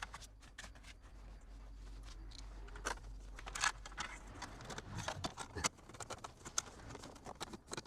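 Scattered light clicks and taps of hand work on a car door speaker as its screws are fitted, over a faint low hum.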